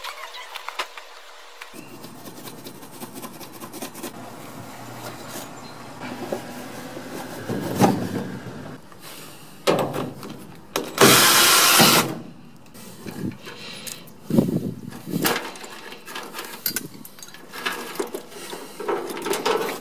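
Hands dismantling a sheet-metal gas furnace cabinet: scattered clicks, knocks and rattles of metal parts and screws. About eleven seconds in comes a loud, noisy burst lasting about a second, while a screw is being backed out of the side panel with a nut driver.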